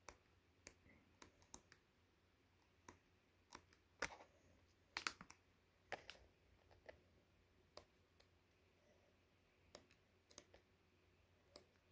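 Sheets of a scrapbook paper pad being flipped through by hand: scattered short clicks and flicks of paper, loudest around four and five seconds in.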